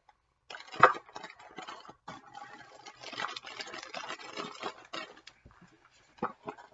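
Cellophane wrapping and gift-box packaging rustling and crinkling as they are handled, with a sharp knock about a second in and a couple of short taps near the end.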